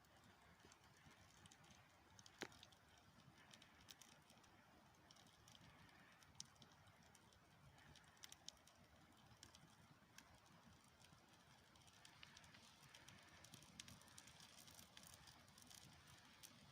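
Faint crackling of a newly lit campfire of birch bark and brushwood catching, with scattered sharp pops and snaps, one louder pop about two seconds in and more frequent snaps near the end.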